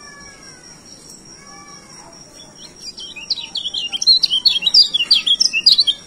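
Caged white-eye (kecial) singing a fast, loud twittering song of rapid high chirps, starting about three seconds in and running to the end.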